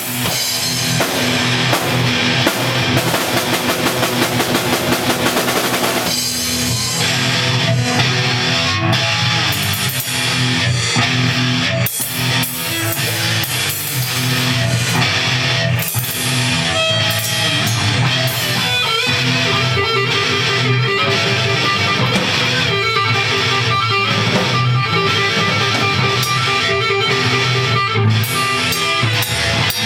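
Punk rock band playing electric guitars over a drum kit, with a change to a new section about six seconds in.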